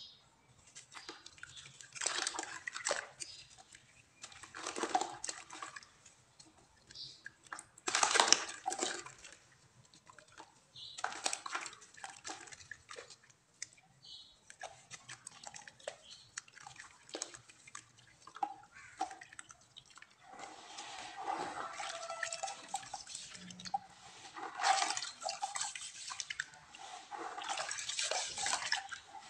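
Hands crumbling and squeezing a lump of dry soil in a basin of water, with splashing and dripping in irregular bursts that become busier and more continuous in the last third.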